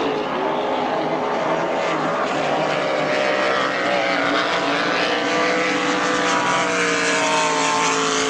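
Several racing powerboat engines running hard at high revs, their notes overlapping and drifting slowly up and down in pitch.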